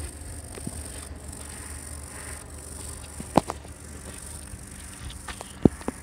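Quiet background with a steady high-pitched hiss and a few sharp clicks, one about three and a half seconds in and a couple more near the end.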